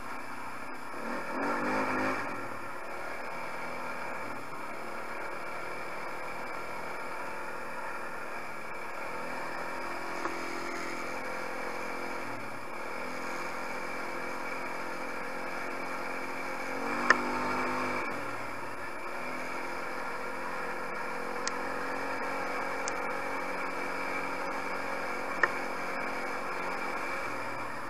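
250 cc Tao quad ATV engine running on a dirt trail, its note rising and falling with the throttle and swelling briefly twice. A few sharp knocks come through, the loudest about seventeen seconds in.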